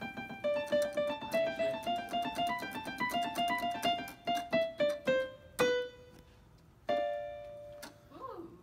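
Electronic keyboard played with a piano sound: a quick run of single notes, about three or four a second, then a held note and a final chord that ring out and fade.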